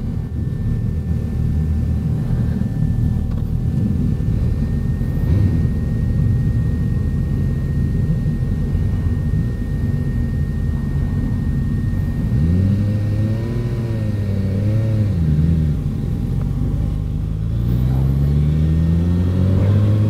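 Suzuki GSX-S1000F's inline-four engine idling with a steady rumble while stopped; about twelve seconds in the revs rise, waver and drop as it moves off, and near the end the engine note climbs steadily as the bike accelerates.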